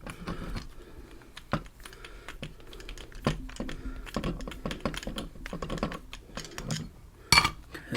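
Irregular small clicks and taps of a Ruko padlock's Zeiss Ikon core and hand tools being handled during disassembly, with a few sharper clicks about a second and a half in, about three seconds in and near the end.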